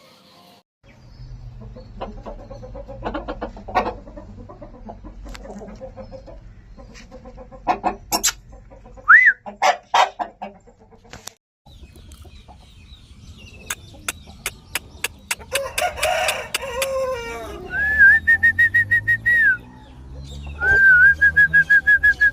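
Aseel chickens clucking and calling, with a rooster crowing. In the last few seconds there is a steady high whistle, held twice.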